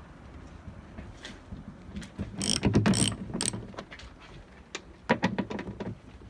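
Ratchet clicking in short runs, about two and a half seconds in and again near the end, as the bolts holding a tailgate lock are undone with a splined bit.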